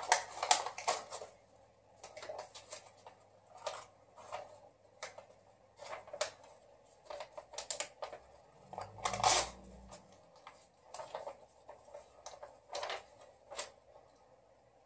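A paper printout being torn, crumpled and chewed: scattered short crackles and rustles, with a louder rustle and a low bump about nine seconds in.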